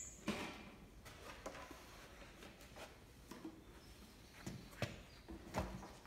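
Faint, scattered knocks and clicks of welding gear being handled: the welder's spring earth clamp and torch are set up on a steel ammo box, with the loudest thud near the end.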